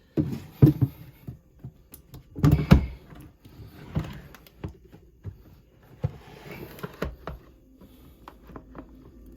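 Irregular knocks, thuds and clicks of battery cells, wiring and box parts being handled and test-fitted into a battery box, with the loudest clunks about a second in, near the three-second mark and around seven seconds.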